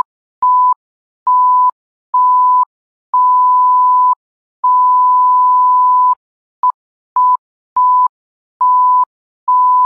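Censor bleeps: a steady 1 kHz beep tone sounding about eleven times in uneven lengths, from short blips to holds of a second or more, with dead silence between, blanking out the excited shouting.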